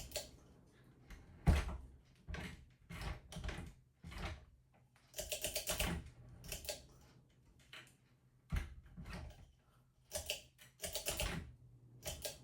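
Repeated short bursts of rapid clicks and taps, about ten clusters with quiet gaps between them.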